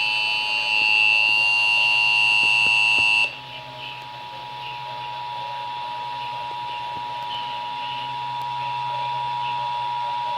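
Emergency Alert System attention signal: the two-tone alarm, two steady tones sounding together, broadcast over the radio during a Required Monthly Test. For about the first three seconds a second, higher-pitched steady tone overlaps it and is louder, then cuts off suddenly.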